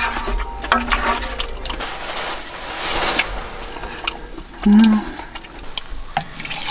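Water poured from a plastic pitcher into a small metal pot, with a few light clinks of a utensil against a stainless steel tray.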